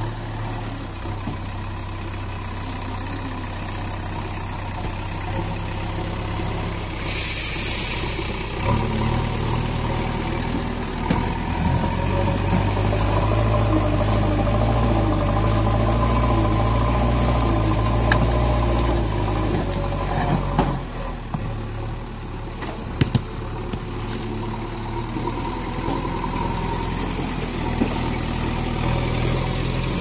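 JCB backhoe loader's diesel engine running as the front bucket pushes through soil and rocks, the engine getting louder and labouring under load for about ten seconds in the middle. A short hiss comes about seven seconds in, and a few sharp knocks later on.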